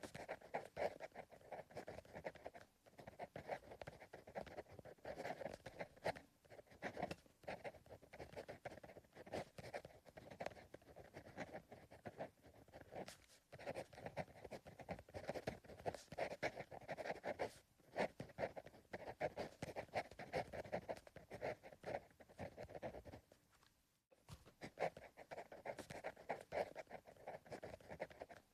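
Pencil writing on paper: steady runs of soft scratching strokes, broken by short pauses every few seconds.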